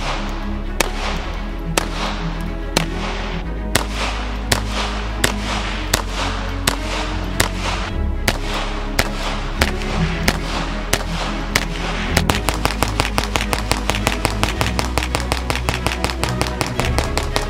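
Volquartsen ENV-9 .22 LR pistol firing over background music. Single sharp shots come about every three-quarters of a second, then a fast string of about five shots a second begins some twelve seconds in.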